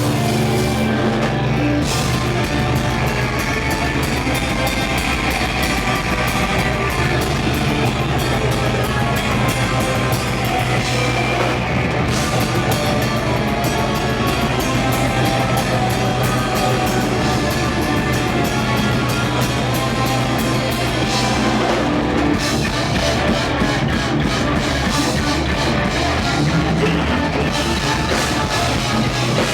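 A rock band playing live: guitar and drum kit, loud and unbroken.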